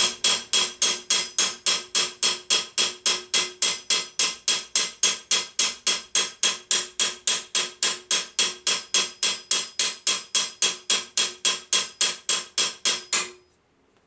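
Rapid, even hammer blows, about three to four a second, on a 1.6 mm steel plate held over a domed steel stake, each strike with a metallic ring; the blows stop abruptly about a second before the end. This is sheet steel being hammered around an unwanted rivet hole to draw the metal in and shrink the hole closed.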